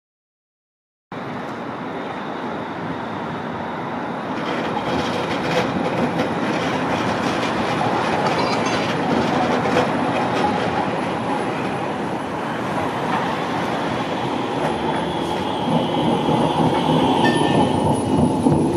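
About a second of silence, then an Alstom Citadis low-floor tram approaches along the track and passes close by. Its running noise builds steadily, with a brief high squeal near the end as it goes past.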